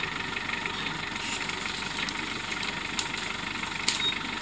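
Mitsubishi Pajero's engine running at low revs as the 4x4 crawls slowly over rocks, with two sharp knocks about three and four seconds in.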